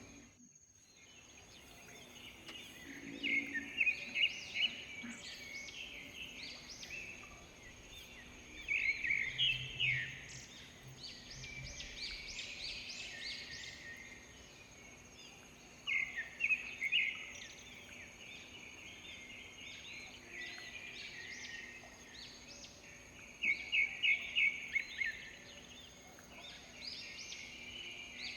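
Wild birds singing in the open: bouts of rapid, repeated high chirping notes about every six to seven seconds. Under them runs a steady thin high tone.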